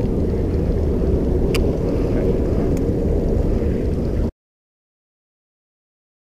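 Wind buffeting an action camera's microphone: a steady, choppy low rumble with a faint click about a second and a half in, cutting off to dead silence about four seconds in.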